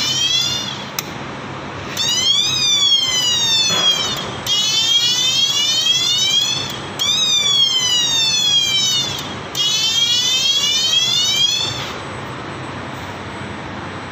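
Whine of the straw packing machine's servo drive, run in short bursts as it is jogged from the control panel. The pitch glides down and up in about five bursts of two to three seconds each, each starting and stopping abruptly, and it falls quiet about twelve seconds in.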